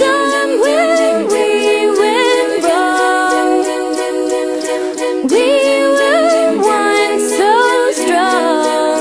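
A cappella vocal music: a group of voices holding chords while a lead voice glides between notes above them, with no instruments.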